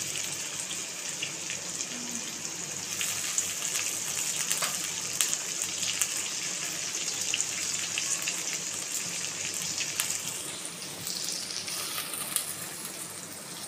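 Mustard oil sizzling and bubbling around pieces of hilsa coated in mustard-poppy paste in a kadai: a steady frying hiss dotted with small crackles.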